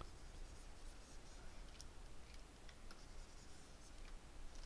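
Faint room tone with a few light clicks and soft scratching, typical of a stylus working on a graphics tablet during digital sculpting.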